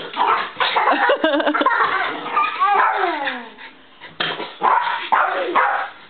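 Small terrier barking and yipping in short excited bursts while leaping after a balloon, with a brief lull about four seconds in before the barking resumes.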